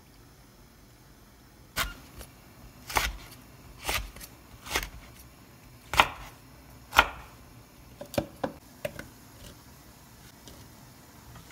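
Kitchen knife chopping red chilies on a wooden cutting board: six sharp knocks about a second apart, then a few lighter clicks.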